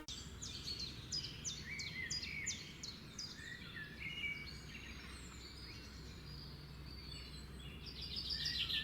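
Faint birdsong: many short, high, falling chirps over a light background hiss, with a quicker run of chirps near the end.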